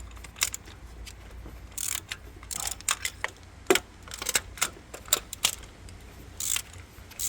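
Hand ratchet clicking in irregular short runs, with knocks of the tool on the engine, as the spark plugs are loosened with a 14 mm spark plug socket.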